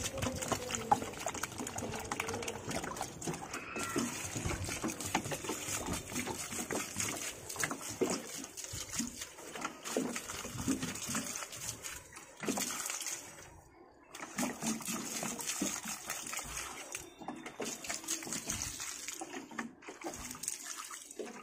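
Water poured from a plastic jug into the soil of potted plants, splashing and trickling, in several pours with short breaks between them.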